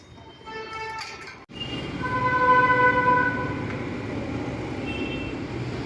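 Road traffic rumbling steadily, with a vehicle horn sounding once for just over a second.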